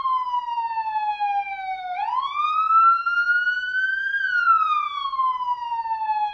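Police siren sounding a slow wail: the tone falls, sweeps back up about two seconds in, peaks, then falls slowly again.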